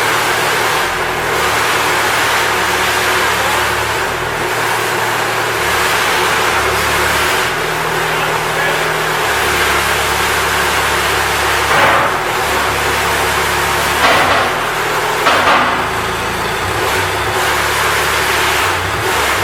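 Boxer 526DX mini track loader's 27 horsepower diesel engine running steadily as the machine is operated, with a few short louder bursts about twelve to sixteen seconds in.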